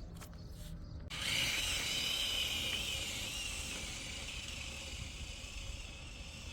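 Repurposed DeWalt cordless drill motor driving a longboard's back wheel, starting suddenly about a second in: a wavering high whine with a hiss that slowly fades.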